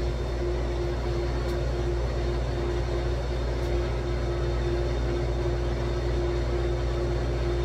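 Electric water pump running without stopping: a steady low hum with one constant tone. The owner fears it is not drawing water because the line is partly frozen.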